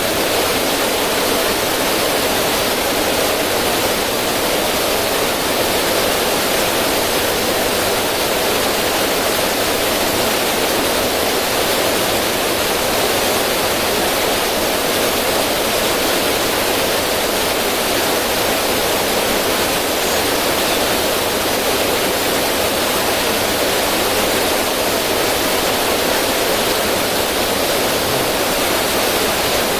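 River water running and splashing over stones in a small cascade, a steady, even rush.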